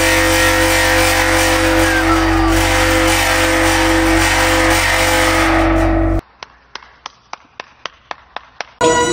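Large bronze gong humming steadily as its raised centre boss is rubbed by hand: two sustained tones over a low rumble. About six seconds in it cuts off abruptly, followed by a run of about ten hand claps that speed up slightly.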